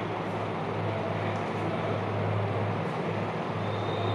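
Steady background noise with a constant low hum, unchanging throughout: room or machine noise with no speech.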